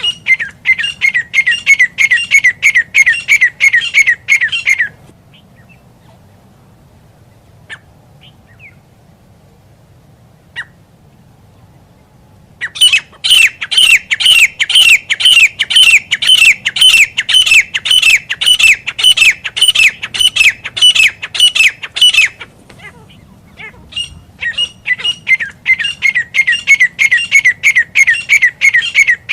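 Grey francolin calling: three bouts of rapid, repeated high squeaky notes, about four a second, with pauses of several seconds between bouts. It is the call played as a lure for hunting francolins.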